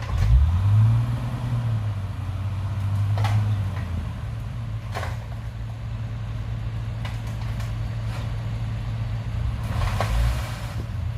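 Excavator's diesel engine running, revving up just after the start and settling back to a steady run by about four seconds in, with a few short clanks.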